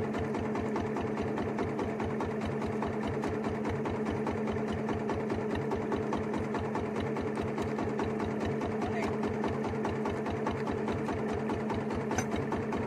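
A small boat's engine running steadily, a constant hum over a fast, even pulse.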